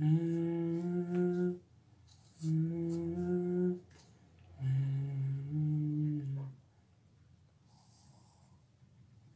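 A man humming a tune in three short phrases of held, steady notes, each about a second and a half long, the third pitched lower than the first two.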